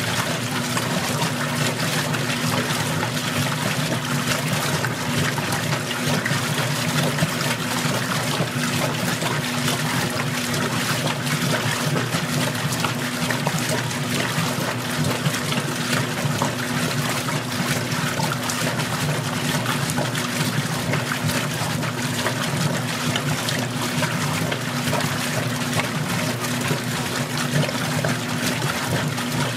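Magic Chef 20-pound washer agitating in the rinse at its lowest water level: water swishing and splashing in the tub over a steady motor hum.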